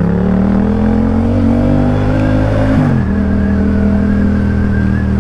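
Yamaha XSR700's 689 cc parallel-twin engine under way, its pitch climbing as it accelerates for about two and a half seconds. The pitch then drops sharply about three seconds in, and the engine runs steady after that.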